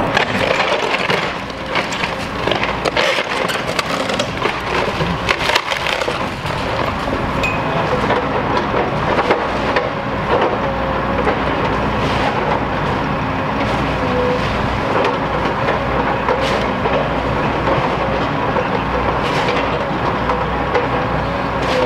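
Demolition excavator breaking up a wood-framed house: wood cracking and splintering and debris crunching, with many sharp cracks over the machine's continuous engine noise and a wavering hum.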